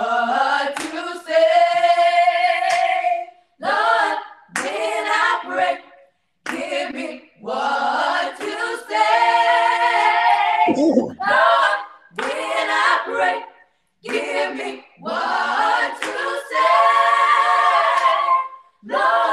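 A small group of young mixed voices, girls and a boy, singing a gospel song a cappella in close harmony: short phrases broken by brief pauses, with a few longer held chords.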